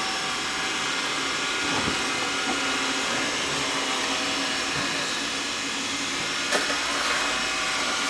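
Xiaomi Mi Robot Vacuum running steadily on a wooden floor, its suction fan giving an even whine with hiss. There is a brief knock about six and a half seconds in.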